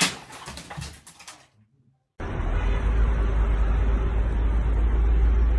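A few quick knocks and rattles that die out after about a second and a half. Then, after a short silence, a steady low rumble starts abruptly and carries on.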